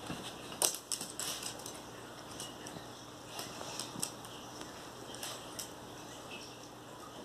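Irregular light clicking and scratching of small dogs' claws on a tile floor and a fabric sofa as they scramble and play.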